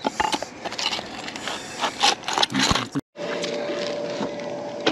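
Irregular scraping and knocking of metal debris and mud being handled off a fishing magnet. About three seconds in the sound cuts out for a moment, and afterwards a steady hum runs beneath the scraping.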